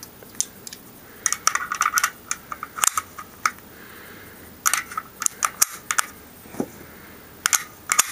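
Dummy rifle cartridges being pressed one by one into the top of a Kalashnikov (AK) box magazine, rolled in past the feed lips: short clusters of sharp metallic clicks as each round snaps into place on the stack, several rounds in turn.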